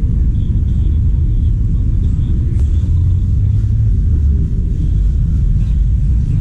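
A steady low rumble, with a single faint click about two and a half seconds in.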